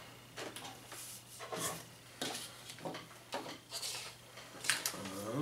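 Scattered light clicks and taps of plastic Heroclix miniatures on their round bases being picked up, set down and shuffled on a tabletop play mat.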